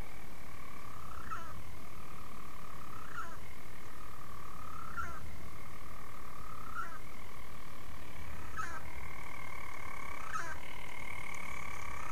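Storm petrel's churring burrow call: a continuous purr broken by a short hiccup about every two seconds.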